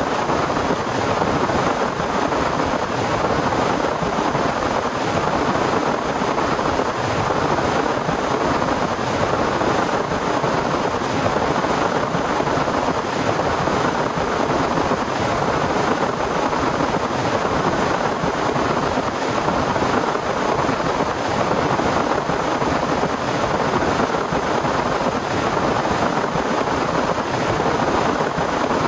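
Heavy, torrential rain falling steadily, an even, unbroken hiss with no let-up.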